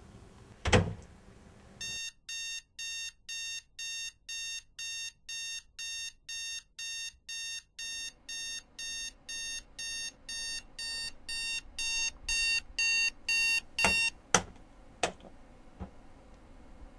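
A loud thump, then a digital alarm clock beeping about twice a second and growing louder after about ten seconds, as the alarm escalates. The beeping stops and is followed by a few knocks as a hand reaches over the clock.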